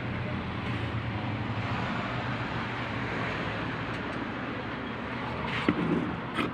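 Steady background noise with a low, even hum, without speech, and a few faint clicks near the end.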